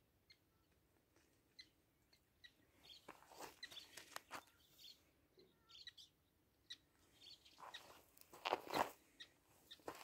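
Quiet outdoor air with faint, scattered small bird chirps, and a few louder soft scuffs near the end.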